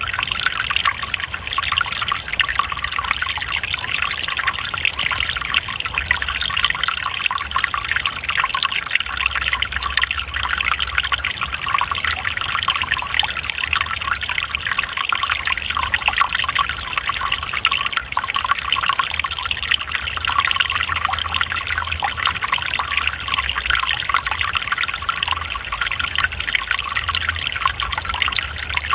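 Forest stream water trickling and splashing steadily, an even rushing hiss with a faint low rumble beneath.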